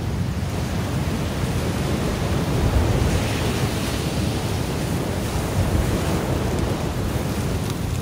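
Ocean waves washing onto the shore, with wind rumbling on a phone's microphone. The wash swells about three seconds in, then eases.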